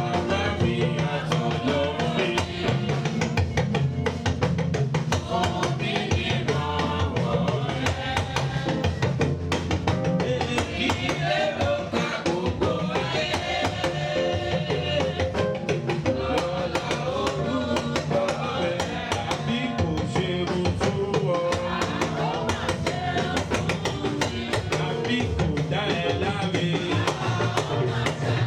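Music with a drum kit keeping a steady beat under singing.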